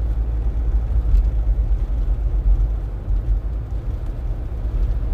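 Steady low rumble of a car being driven, engine and tyre noise heard from inside the cabin on a snowy road.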